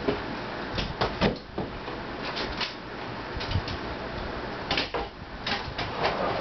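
An old hard drive running with a low steady hum, with a dozen or so irregular sharp clicks and knocks scattered through.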